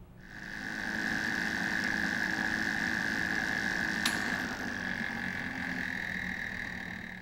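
Becton Dickinson fixed-head benchtop centrifuge running, a steady whine that builds up over the first second and eases off slightly toward the end. One sharp click about four seconds in.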